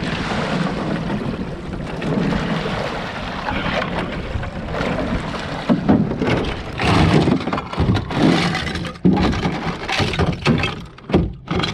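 Wind buffeting the microphone as a rowboat sets out on a pond. From about halfway there is a run of uneven splashes and knocks, about one a second, from the oars working the boat.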